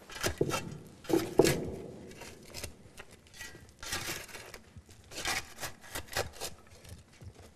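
A shovel scraping and scooping soil in a grave pit: irregular strokes of scraping with a few sharper knocks, the loudest about a second in.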